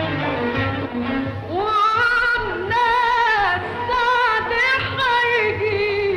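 Background music: a woman singing with vibrato in long held, bending notes over a steady instrumental backing.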